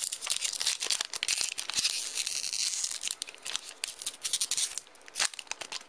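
Foil Pokémon booster pack wrappers crinkling and rustling as a hand works a pack out of the booster box, with many small crackles and a dense stretch of crinkling about two seconds in.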